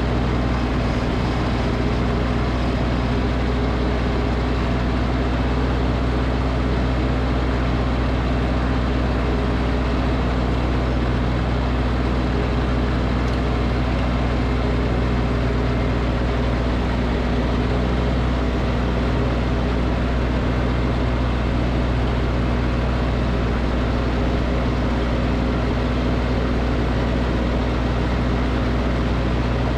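Snowblower engine running steadily at a constant speed, with no change in pitch or level.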